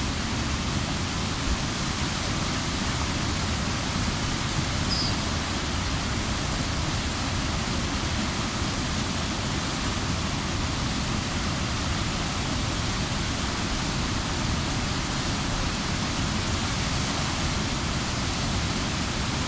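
River water running high over a weir and churning through the rocks below it: a steady rushing noise.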